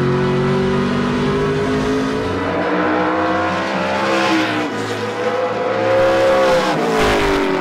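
2021 Toyota Camry ARCA stock car's V8 engine running at speed on the track. Its pitch climbs and eases off twice and drops near the end.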